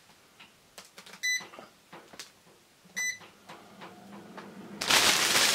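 Two short electronic beeps from an air fryer's touch control panel as its settings are pressed, about a second in and again about three seconds in, with a few light clicks. Near the end a loud steady hiss sets in.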